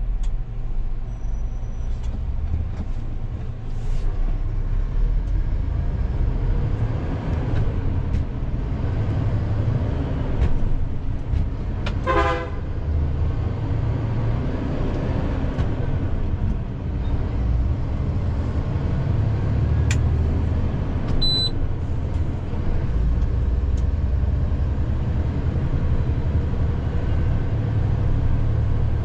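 Cab noise of a Hino 500 truck's diesel engine pulling at low speed, a steady low rumble whose note shifts a few times. About twelve seconds in, a vehicle horn toots once briefly.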